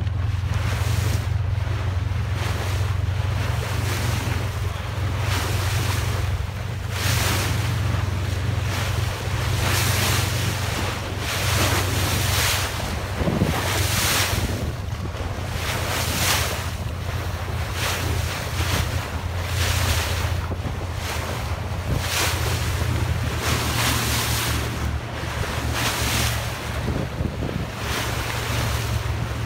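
Boat under way at sea: the bow wave rushing and splashing along the hull, with gusts of wind buffeting the microphone in uneven swells and a steady low hum underneath.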